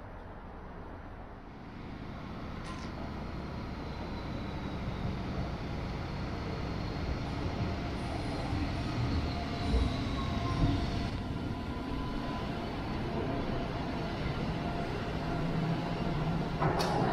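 Sydney light rail tram pulling into the stop, its running sound growing louder as it nears. A thin electric whine falls steadily in pitch as it slows. There are a couple of low thumps about ten seconds in and a sharp click just before the end.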